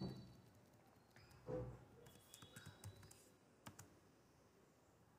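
A few faint, scattered computer keyboard keystrokes and clicks, with two soft low thumps, near the start and about a second and a half in.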